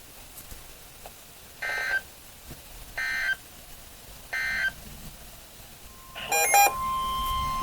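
NOAA Weather Radio Emergency Alert System SAME data bursts: three short digital bursts about a second and a half apart, then a louder burst and a steady high alert tone starting about a second before the end. This is the header and 1050 Hz warning alarm that announce a new warning, here a tornado warning.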